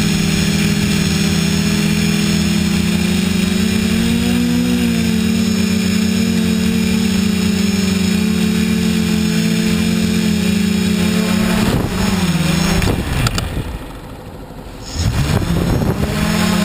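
TBS Discovery quadcopter's electric motors and propellers droning steadily in flight, heard from the onboard camera. About twelve seconds in the pitch dips and wavers, and then the sound nearly dies away for about a second as the craft comes down to the ground before the motors spin back up.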